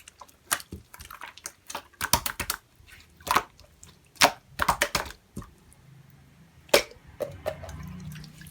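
Pink clear slime being pressed and squished by hand, making irregular wet clicks and pops, a few of them sharp and loud. A faint low hum comes in for the last couple of seconds.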